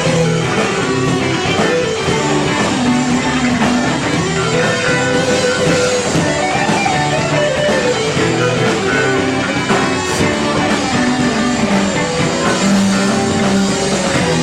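Live rock band playing an instrumental passage of a song, with guitar prominent.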